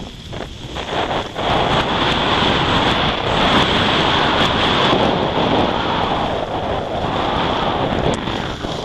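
Wind buffeting the microphone of a helmet camera and skis hissing over packed snow during a fast downhill ski run, growing louder about a second and a half in and easing off near the end.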